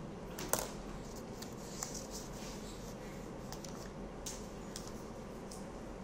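Steady low hum and hiss of background noise, with a few short faint clicks; the sharpest comes about half a second in.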